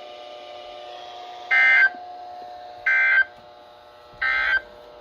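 Emergency Alert System end-of-message data bursts: three short, identical two-tone digital squawks about a second and a half apart. They mark the end of the broadcast flood message.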